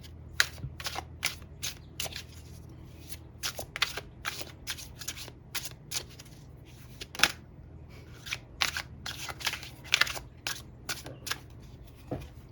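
A tarot deck being shuffled by hand: a run of irregular, short card snaps and flicks, over a steady low hum.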